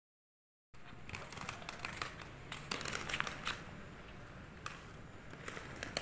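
Light-up inline skate wheels ticking as they roll over brick pavers: irregular sharp clicks, several a second, starting under a second in, thickest about halfway through.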